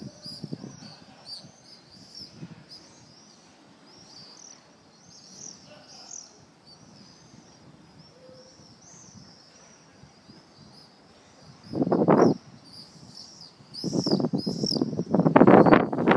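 Swallows twittering: a dense run of short, high chirps overlapping one another. About twelve seconds in comes a brief loud burst of rushing, low-pitched noise, and a longer, louder one fills the last two seconds over the twittering.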